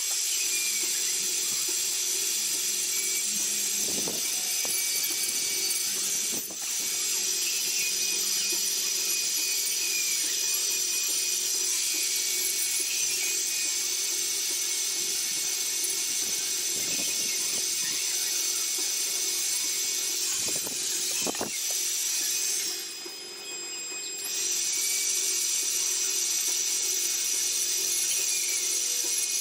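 Handheld electric rotary tool with a fine carving bit running at high speed, grinding into wood: a steady high whine over a low hum. The sound drops away briefly about two-thirds of the way through.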